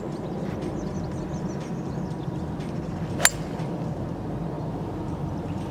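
A golf club strikes the ball off the tee: one crisp, sharp click about three seconds in, with a brief ring after it.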